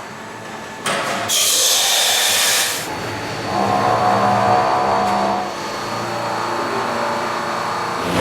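Wooden-handle copy lathe running. About a second in, a loud hissing cut starts and lasts under two seconds. The machine then runs on with a steady motor hum and a whine.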